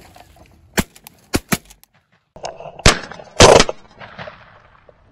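Shotgun fired at crows overhead: a series of sharp reports, the two loudest about half a second apart about three seconds in, following three lighter cracks a second or so earlier.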